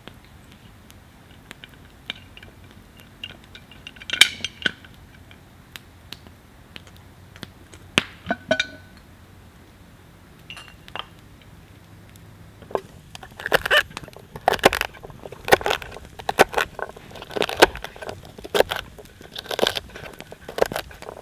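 Knife slicing a celery stalk on a wooden board: crisp, crunchy cuts, one or two a second, starting a little after halfway. Before that, only scattered faint snaps and clicks of a small campfire crackling.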